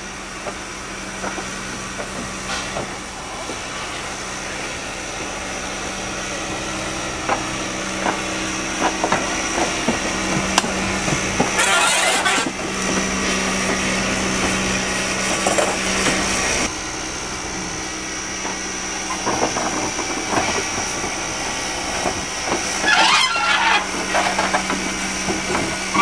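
Steam tank locomotive WTK 4 (ÖBB 392.2530) moving slowly while shunting: a steady hiss of steam over a low hum, with a short loud rush of steam about halfway through.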